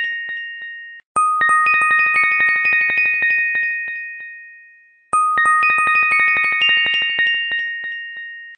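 Background music: a looped phrase of bright chime-like bell tones, struck one after another and ringing on, fading out and restarting about every four seconds.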